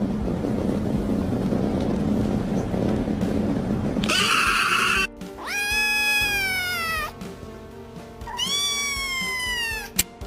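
A cat gives two long, drawn-out meows, each rising and then sliding slowly down in pitch, over background music. Before them comes a few seconds of loud, even noisy rumble and a short hissing burst.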